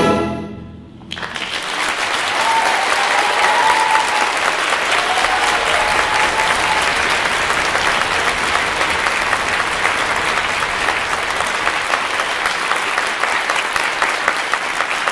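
Symphony orchestra's final chord cut off, its echo fading, then about a second later a concert audience breaks into steady applause that does not let up.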